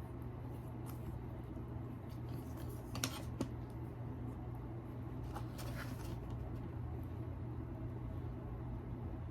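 Steady low hum of room tone, with a few faint light clicks about three seconds in and again near six seconds.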